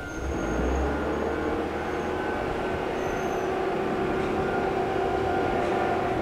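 Electric train running nearby: its rumble swells suddenly at the start and then holds steady, over steady ringing tones from a level crossing alarm.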